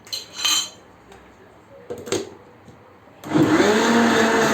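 A few light clicks of handling, then about three seconds in an electric blender starts, spinning up and running loud and steady as it blends grated carrots into the cake batter.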